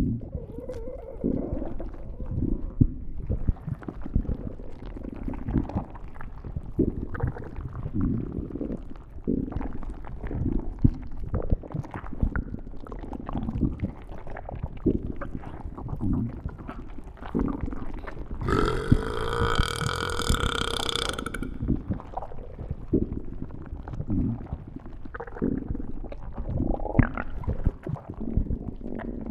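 Stomach growling and gurgling: irregular low rumbles and gurgles that keep coming, with one longer, higher-pitched growl about 19 seconds in that lasts around three seconds.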